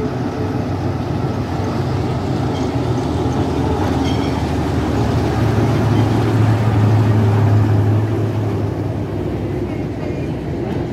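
Small diesel shunting locomotive running past as it hauls a train of carriages: a steady low engine drone that swells about halfway through as the locomotive passes closest, over the rumble of the train on the rails.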